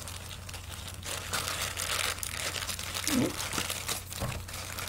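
Packaging crinkling and rustling as a jewelry piece is handled and unwrapped, in many small irregular crackles. A brief voice sound comes about three seconds in.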